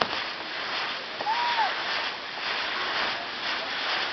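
Spinning fireworks wheel on a castillo hissing and crackling steadily as it sprays sparks. About a second in, a short whistle rises and falls.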